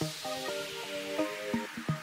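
Electronic background music: short synth chords that change every fraction of a second, with a few sharp percussion hits.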